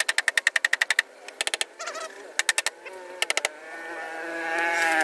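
Quick runs of sharp clicks, about ten a second, come in short bursts. From about three seconds in, a long, wavering animal call rises and grows louder.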